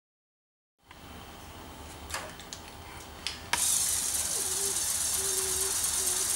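Silence at first, then a few light clicks. About three and a half seconds in, a Lego Technic–style electric motor is switched on by remote and runs with a steady high-pitched whine and hiss, straining against a load too heavy for it to lift.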